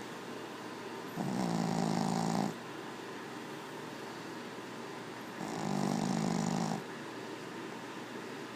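A pug snoring: two drawn-out, low-pitched snores about four seconds apart, each lasting over a second.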